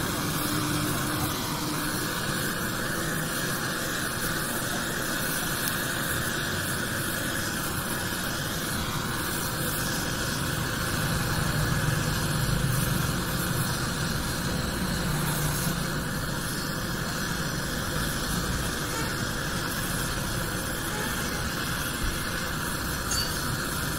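Steady hiss of gas torch flames, a hand-held gas welding torch and a brass heating torch, burning against a steel pipe while brass filler is melted onto it; a low rumble swells a little in the middle.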